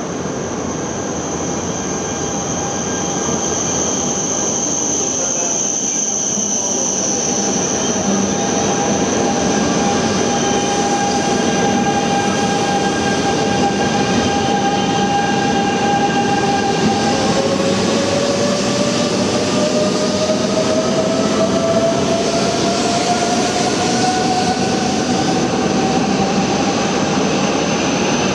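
E926 East-i Shinkansen inspection train moving off, its electric traction motors whining over the rumble of the wheels on the rails. About halfway through, the whine starts to rise slowly in pitch as the train gathers speed.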